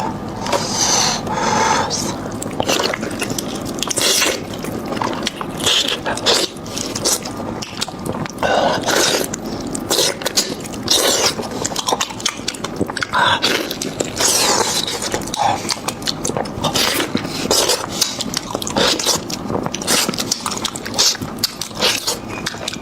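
Close-miked eating of beef trotter: a continuous, irregular run of chewing, smacking and sucking mouth sounds with many short sharp clicks.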